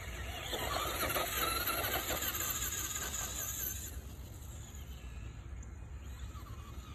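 Stock Traxxas Rustler XL-5 RC truck's brushed electric motor and drivetrain whining at speed on a 2S LiPo. Loudest in the first four seconds, then fainter as the truck pulls away.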